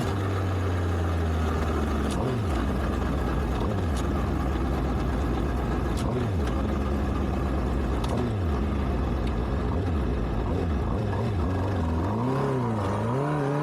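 Honda CBF600S's inline-four engine running at low revs through slow traffic. Its pitch dips and rises several times as the throttle is rolled off and on, with quicker swings near the end.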